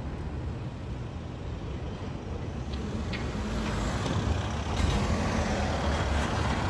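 Wood fire burning in a top-lit wood stove: a low steady rumble that grows slowly louder, with a few faint crackles.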